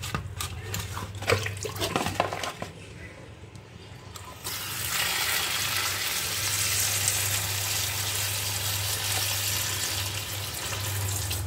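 Hands sloshing bitter gourds about in a bowl of water with small splashes. About four seconds in, a kitchen tap comes on and runs steadily onto the gourds and into the steel sink.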